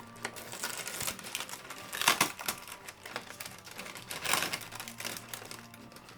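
Quick, irregular clicking and scratching, like a rhinoceros iguana's claws on a hard surface, with louder scraping or rustling surges about two seconds and four seconds in.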